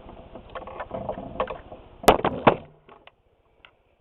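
Handling noise of small hard parts: scattered knocks and rattles, then a sharp click about two seconds in followed by a few more clicks, after which it goes quiet.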